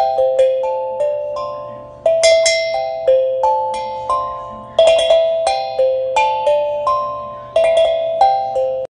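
Tongue drum played as a slow melody of single struck notes, each ringing out and fading before the next, with a few notes struck in quick pairs. The sound cuts off abruptly at the end.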